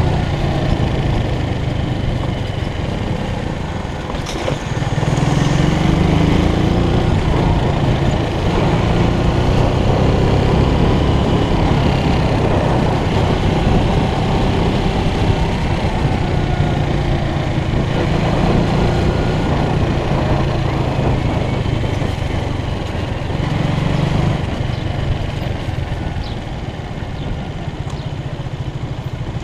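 Motorcycle engine running at low road speed, heard from the rider's own bike along with wind and road noise. The engine dips briefly about four seconds in, then rises in pitch as it picks up speed, and eases off near the end.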